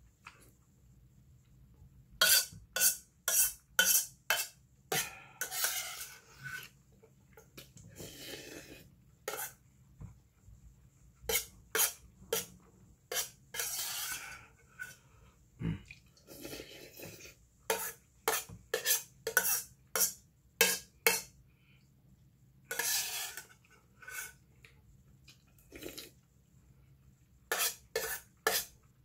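Metal spoon clinking and scraping against an aluminium pot as it scoops up soup: quick runs of sharp taps, several a second, with a few longer scrapes in between.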